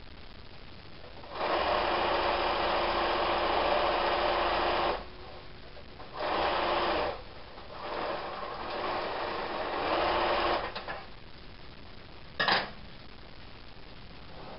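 Electric domestic sewing machine stitching fabric in three runs: a steady run of about three and a half seconds, a short burst, then a longer run that starts softer and gets louder. A single short sharp sound follows near the end.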